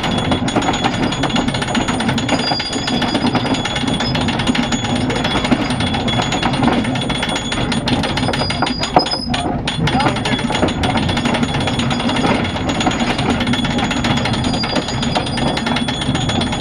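Steady, rapid mechanical rattling that runs without a break, with voices underneath.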